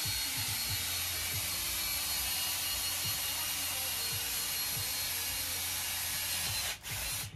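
Cordless drill boring into a green coconut, a steady grinding whir as the bit cuts through husk and shell, with a brief break near the end.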